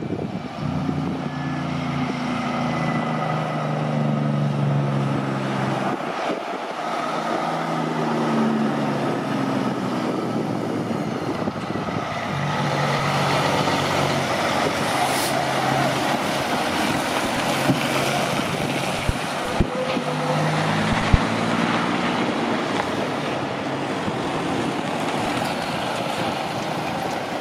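Heavy diesel trucks driving by, the engine note holding and then dropping away in steps, under steady tyre and road noise that swells and fades. A few sharp clicks come near the end.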